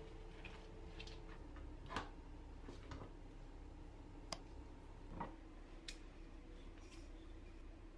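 About seven light, irregularly spaced clicks and taps of kitchenware being handled on a counter: a ceramic bowl, a spatula and bottles. Under them runs a faint, steady hum.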